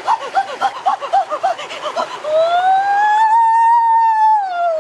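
A boy's voice: a rapid string of short excited yelps for about two seconds, then one long yell that rises in pitch, holds, and falls away at the end.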